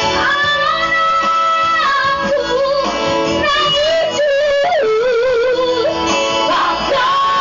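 Women's vocal trio singing a Batak song into microphones over amplified band accompaniment with some plucked string. The voices hold long, high notes early on, then turn to a wavering, ornamented line with a quick upward slide about halfway through.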